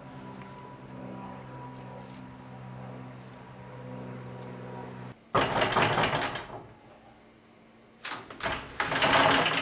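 A steady low drone of several held tones that cuts off abruptly about five seconds in. A loud rattling noise follows for about a second, and more rattling and banging starts about three seconds later.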